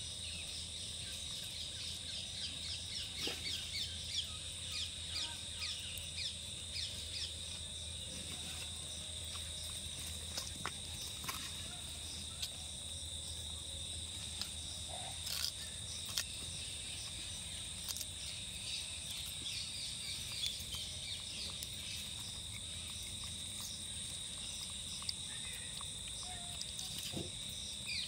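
Steady high-pitched insect chirring. Short high squeaks and chirps are scattered over it, busiest in the first several seconds, along with a few faint clicks.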